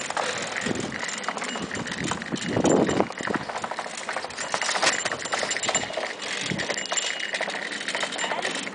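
A bicycle rattling over brick street paving: a dense, uneven run of clicks and knocks, with a louder burst about two and a half seconds in.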